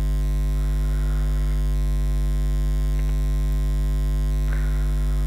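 Steady electrical mains hum: a loud, unchanging low buzz with many evenly spaced overtones. Two faint soft hisses come through it, about a second in and near the end.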